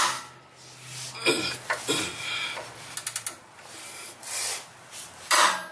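A socket wrench being worked on a rusted bolt, with scraping and knocking of tool against metal and a quick run of ratchet clicks about three seconds in.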